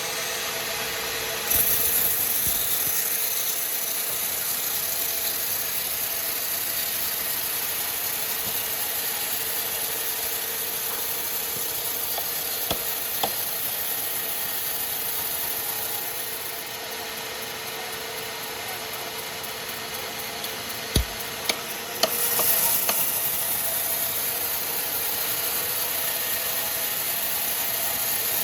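Sawmill machinery running with a steady hum. A high hiss of sawing sets in about a second and a half in, drops away a little past the middle, and returns after a few sharp knocks.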